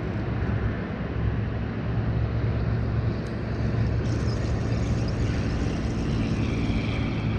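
A distant engine's steady low rumble, with a faint higher whine joining about halfway through.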